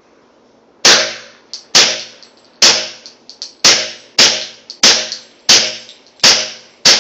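Suppressed Glock 21 .45 ACP pistol fired nine times in steady succession, a little under a second apart, each shot a sharp crack with a short fading tail, called very quiet; fainter ticks fall between the shots.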